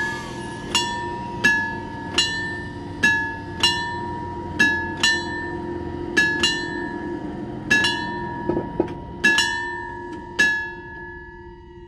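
A bell-like chime struck over and over at the same pitch at an uneven pace, each strike ringing out, over a steady low hum. The strikes stop about ten and a half seconds in and the ringing fades away.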